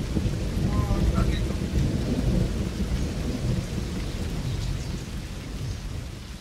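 Low rolling rumble like thunder, under a steady hiss like rain, slowly fading toward the end. A few short high chirps sound about a second in.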